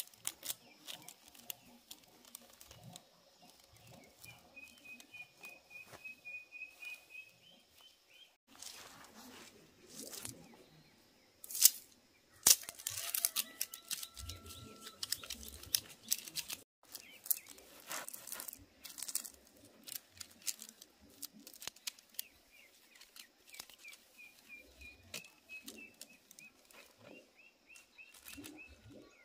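Irregular rustling and clicking of handwork with plant material, with a few sharper knocks about halfway through. A bird gives a fast chirping trill twice, near the start and near the end.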